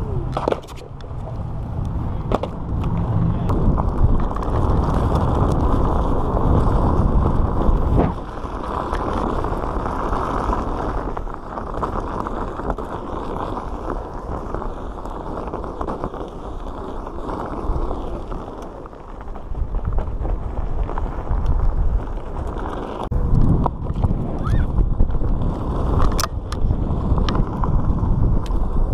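Onewheel XR being ridden at speed: a dense, steady rumble of its tyre rolling on pavement, with wind on the low-mounted microphone. A few sharp knocks come near the end.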